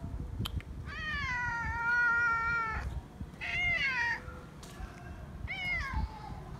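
Feral cat meowing three times: a long drawn-out meow of about two seconds, then two shorter meows that fall in pitch.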